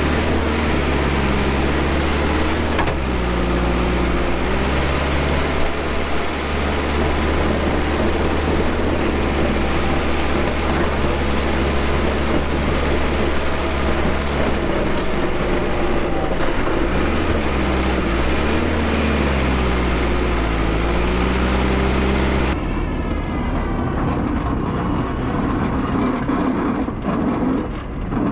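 Cat 420F backhoe's diesel engine working while plowing snow, its pitch rising and falling as throttle and load change. About 22 seconds in the sound turns duller.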